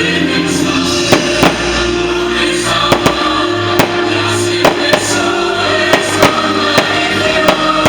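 Loud music with singing playing over loudspeakers, while fireworks go off about a dozen times in sharp, irregularly spaced bangs.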